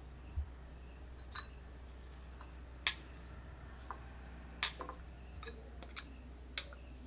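Light clinks and taps of a small steel bowl against a ceramic mug as chopped coriander is tipped and scraped in: about half a dozen short, irregular knocks, one ringing briefly.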